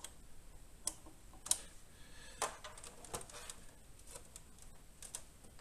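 Irregular light clicks and taps, about ten of them, the sharpest about a second and a half in, from a tool working the tension adjustment screw of a monitor arm.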